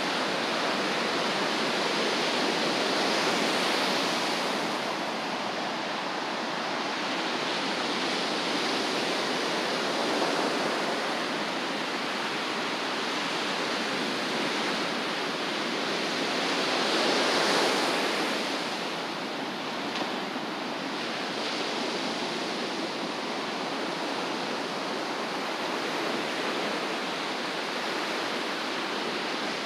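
Ocean surf washing in steadily, with waves breaking louder about three seconds in and again about seventeen seconds in.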